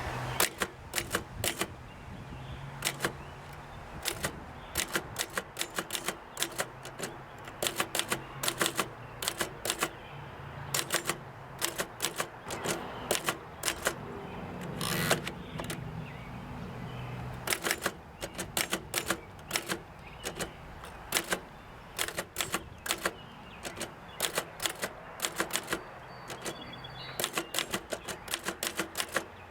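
Remington Model 5 manual typewriter typing sample text: sharp keystroke clacks several to a second, in runs broken by short pauses.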